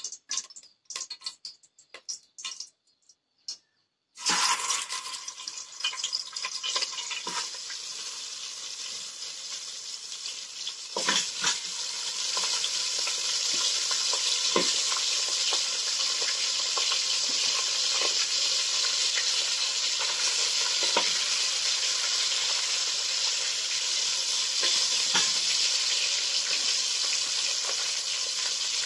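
Pieces of raw meat sizzling as they fry in a hot aluminium pot on a camping gas stove. The sizzle starts suddenly about four seconds in as the first pieces go in and grows louder about eleven seconds in as more are added, then holds steady, with occasional knocks as pieces are placed in the pot.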